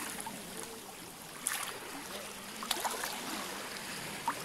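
Shallow seawater washing gently over sand at the water's edge, a steady wash with a few brief sharp taps.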